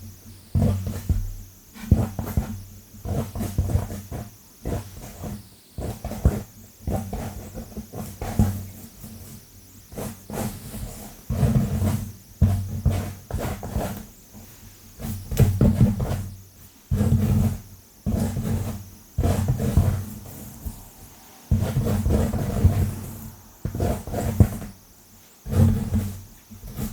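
Long fingernails scratching fast and hard through hair on a scalp close to the microphone. Uneven bursts of low-pitched rustling come every second or two, broken by sharp nail clicks.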